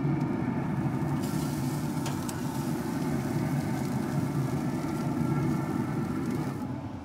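Traeger pellet grill running with a steady low fan hum. About a second in, a sizzling hiss starts as the tri tip is turned over onto the hot grate with metal tongs, with a couple of sharp clicks from the tongs. The sizzle cuts off near the end.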